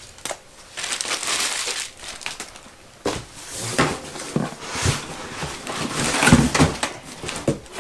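Cardboard accessory boxes and their packaging being handled and opened: rustling and crinkling in bursts, with a few soft knocks.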